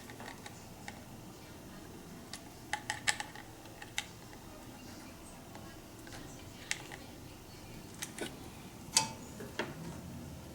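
Scattered small clicks and taps of hand tools on the Boss ME-80's circuit board as the old tact switch is desoldered and pulled off: a quick cluster of clicks about two and a half seconds in, single ones after that, and the loudest click about nine seconds in.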